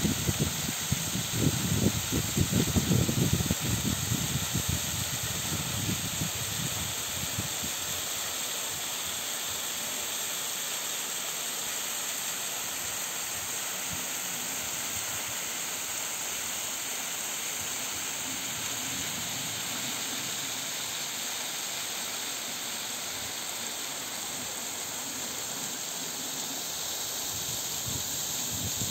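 Steady hiss of falling water from a thin, partly frozen waterfall. Wind buffets the microphone with low rumbling gusts during the first few seconds.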